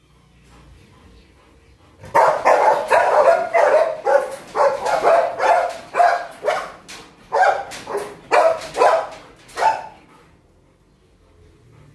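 Kennelled dogs barking in a rapid run of about two to three barks a second, starting about two seconds in and stopping shortly before the end: the dogs worked up at the prospect of being taken out for a walk.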